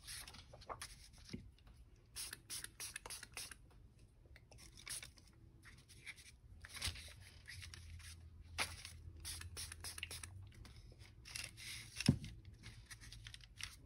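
Faint, scattered rustles and taps of paper sheets being handled and laid down on a work surface, mixed with short spritzes from a hand-pumped spray bottle.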